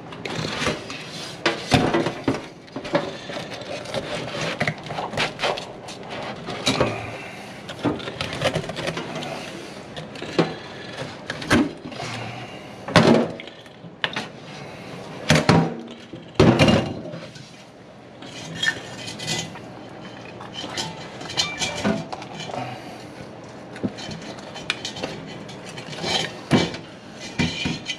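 Irregular clanks, knocks and scrapes of a hard-plated armored catfish (pleco) and a hook blade against a stainless steel kitchen sink as the fish is gutted.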